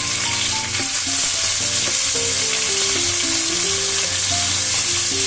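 Whole turmeric-and-salt-rubbed khoyra fish frying in hot oil in a pan: a steady, dense sizzle as the fish are laid in one by one. Soft background music of held notes plays underneath.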